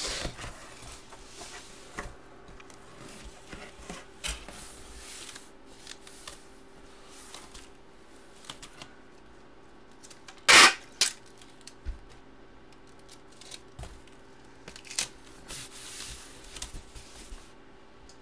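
Handling noises from a large packaged 16x20 photo: scattered rustles and light knocks of plastic and cardboard packaging, with one short, loud rustle about halfway through. A faint steady hum runs underneath.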